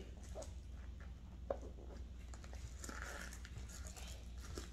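Faint handling of a metal kiss-lock frame purse: light rustling with a few soft clicks, the clearest about a second and a half in.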